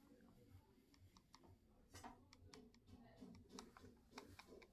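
Faint, irregular clicks and taps of wooden chopsticks against a small nonstick frying pan as soft scrambled egg is pushed against the pan's rim into an oval, the clicks coming more often from about two seconds in.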